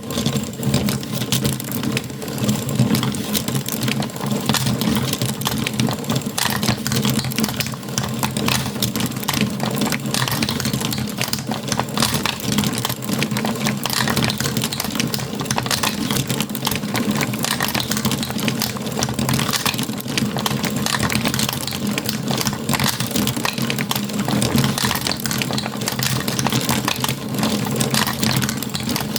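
Marbles rolling and clattering continuously along a toy marble run: a dense stream of quick clicks and rattles, with a steady low hum underneath.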